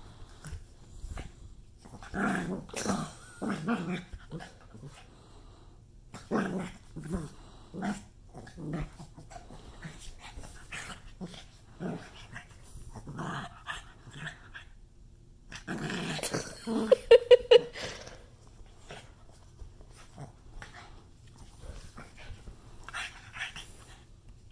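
Black pug growling in bouts while it mouths and wrestles with a person's hand, with one louder, higher-pitched outburst about two-thirds of the way through.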